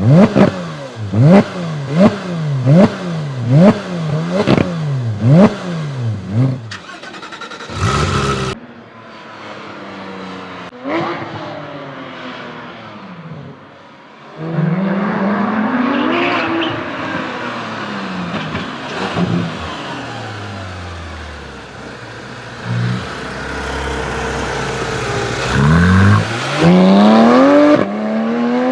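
Porsche 991 GT3 RS 4.0-litre flat-six engine revved in a quick string of about nine sharp throttle blips, each rising and falling, then, after a break, the car accelerating hard with the engine pitch climbing, easing off, and climbing again near the end.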